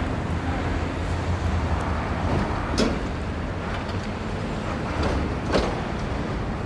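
City street traffic: a steady low rumble of engines and tyres, with two sharp knocks, about three seconds in and again about two and a half seconds later.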